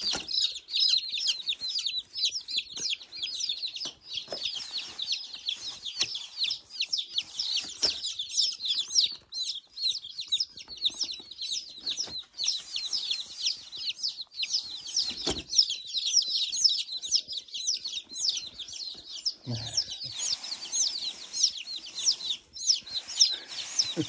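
A brood of day-old chicks from a hatchery box peeping continuously, many short high peeps overlapping. There are a few knocks as the cardboard box is handled.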